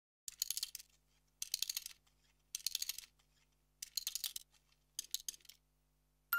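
Five short bursts of rapid, crisp clicking or snipping, each about half a second long and about a second apart.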